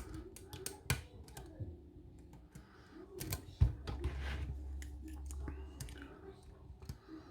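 Small, irregular metallic clicks of a lock pick and tension wrench working the pins in a pin-tumbler lock's keyway, with one louder knock about three and a half seconds in.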